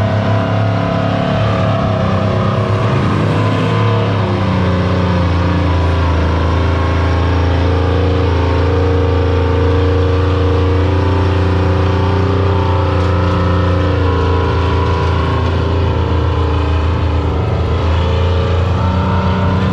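Modified pulling truck's engine running under full load as it drags a weight-transfer sled: a loud, steady drone whose pitch shifts a little about four seconds in and again near the end.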